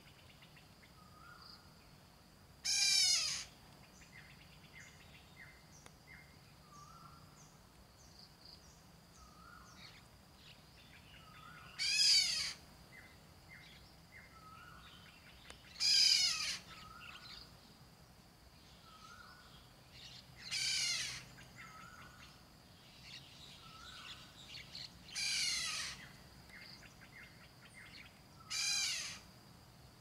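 Black-naped oriole calling six times, each call under a second long and a few seconds apart. Beneath the calls runs a steady high insect whine, with faint short chirps repeating every couple of seconds.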